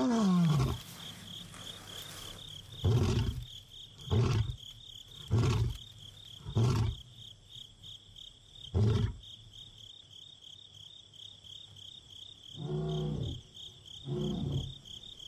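Male lion roaring: the tail of a long moaning roar falling in pitch, then a run of five deep grunts a second or two apart, the usual close of a lion's roaring bout. It is a contact call to locate a lost companion. Two fainter calls come near the end, over steady cricket chirping.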